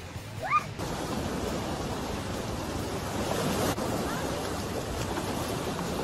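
Ocean surf washing in at the shoreline, a steady rushing noise with wind on the microphone, starting abruptly about a second in and swelling briefly near the middle. Just before it, a short rising high-pitched call.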